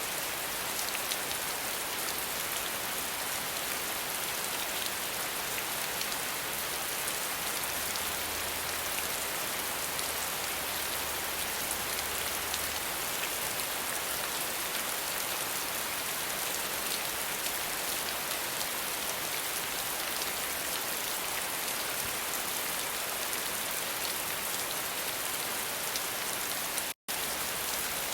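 Steady rain falling, a dense even patter of drops with no thunder. It cuts out for an instant near the end.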